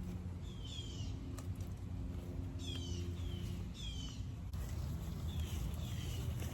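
A bird calling over and over: short, high calls falling in pitch, repeated every second or two.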